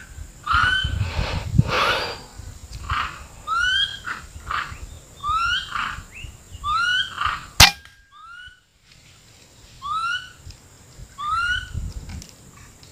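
Short rising whistle-like animal calls repeating about once a second. A single sharp shot from the scoped rifle comes a little past halfway and is the loudest sound.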